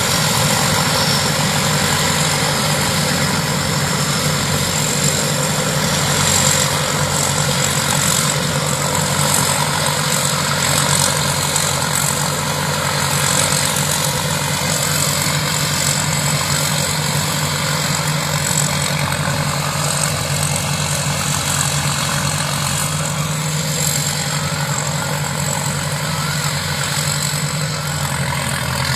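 Combine harvester's diesel engine and threshing machinery running steadily at a constant speed.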